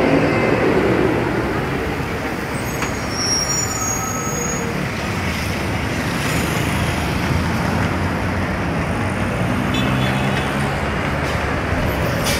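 Street traffic: the steady noise of passing motor vehicles and their engines, with an engine's drone standing out more about nine to eleven seconds in.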